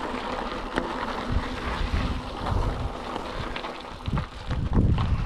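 Cube Reaction GTC Pro hardtail mountain bike rolling over a rocky gravel track: tyres crunching on loose stones and the bike rattling, ridden with its suspension fork locked out. Wind buffets the microphone, heaviest near the end.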